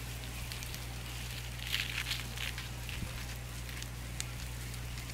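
Dry leaf litter crackling and rustling in short clusters of light clicks, busiest around two seconds in, over a steady low hum.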